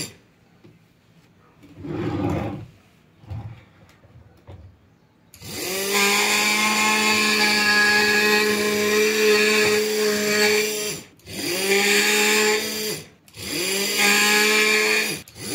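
Electric motor of a Sun Special SSW-100 4-inch direct-drive fabric-cutting machine. After a few seconds of soft handling noises, it whines up to speed and runs steadily. Near the end it is switched off and straight back on three times in quick succession, rising in pitch at each start.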